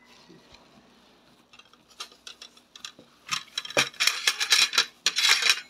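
Thin plastic disposable gloves crinkling and rustling as they are handled and pulled on, after a few scattered light clicks. The crinkling starts about three seconds in and is loudest near the end.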